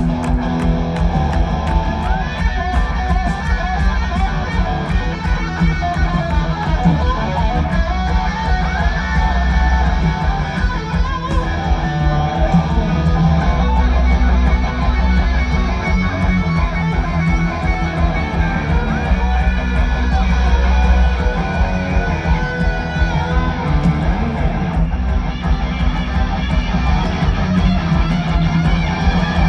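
Rock band playing live through a stadium PA: distorted electric guitars, bass and drums in an instrumental jam with no singing, with a few long guitar notes bent up and held.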